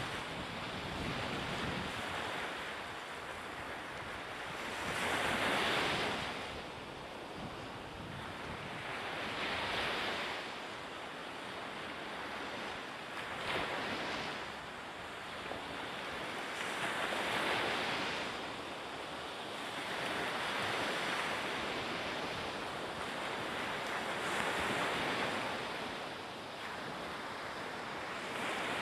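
Small waves breaking on the shore, the surf swelling and falling back about every four seconds, with some wind on the microphone.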